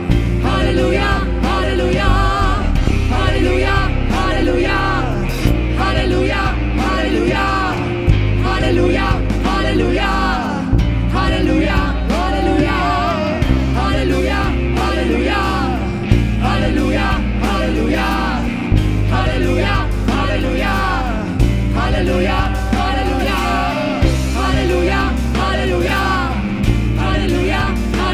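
Worship band music with singing over sustained low bass notes that change every couple of seconds.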